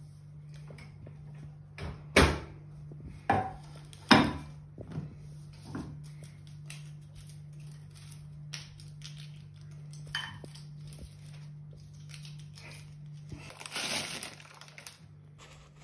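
Crisp microwave-dried potato chips and parchment paper being handled: a few sharp knocks in the first few seconds, light clicks as the chips are picked off the paper, and near the end a rustling slide as they are tipped from the parchment into a wicker basket. A steady low hum runs underneath.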